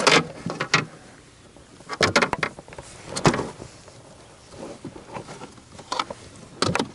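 Scattered knocks and scrapes as a smallmouth bass and a plastic measuring board are handled against a kayak's plastic deck, a few separate bumps with quiet between them.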